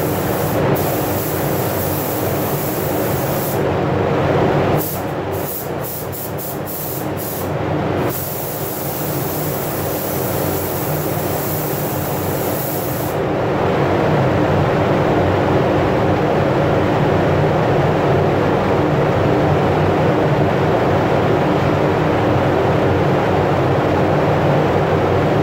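Gravity-feed spray gun hissing with compressed air as base coat is sprayed onto a car panel, the trigger released briefly several times a few seconds in. Under it runs a steady rushing of air, and the gun's high hiss fades about halfway through.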